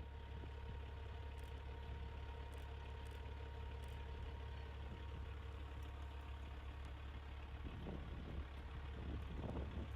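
Semi truck diesel engine running steadily at low idle, a constant low rumble with a steady hum on top, swelling a little near the end.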